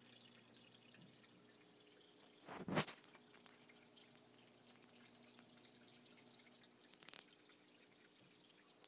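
Faint water dripping and trickling in an aquarium over a low steady hum, with one short, much louder burst about two and a half seconds in and a smaller one about seven seconds in.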